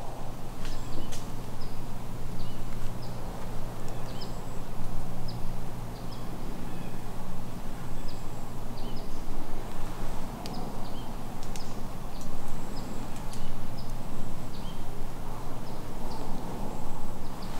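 Short, high chirps of small birds repeating throughout, over a steady low hum and outdoor noise.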